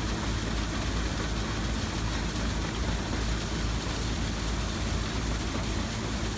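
Antique steam-powered machinery running steadily: a continuous low rumble with a steady hum and hiss over it.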